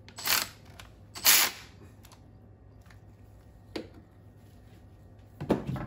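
Cordless electric ratchet driving thermostat-housing bolts on an outboard's aluminium cylinder head: two short whirs in the first second and a half, then a light click and a knock of tool handling near the end.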